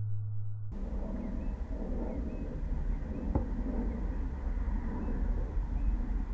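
A low electrical hum cuts off abruptly under a second in. Then comes outdoor ambience: a steady low rumble with a few faint chirps and a single sharp click about three and a half seconds in.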